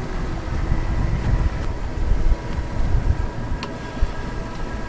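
Wind rumbling unevenly on the microphone, with a faint steady hum underneath and a single light knock about three and a half seconds in.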